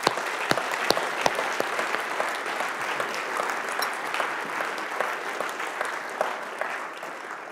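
An audience applauding, the clapping slowly dying away near the end.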